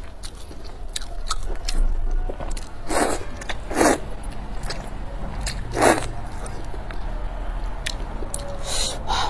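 Close-up eating sounds of a person slurping noodles from a spicy soup and chewing. Four loud slurps stand out over softer wet chewing and mouth clicks.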